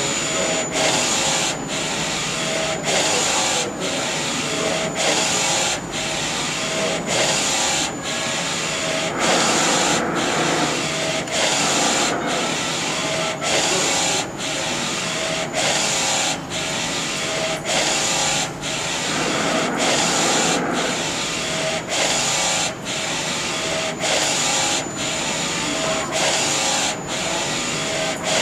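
NC-610A direct-to-garment textile printer printing: its print-head carriage sweeps back and forth across the platen with a steady mechanical whirr. There is a brief dip each time the carriage reverses, about once a second.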